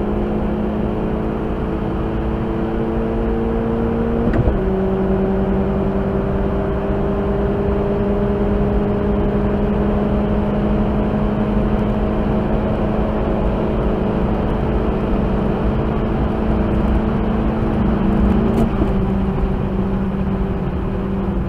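Tuned Opel Corsa OPC's turbocharged four-cylinder heard from inside the cabin, accelerating hard: its note climbs slowly in pitch and drops suddenly at two upshifts, about four seconds in and near the end, over steady road and wind noise.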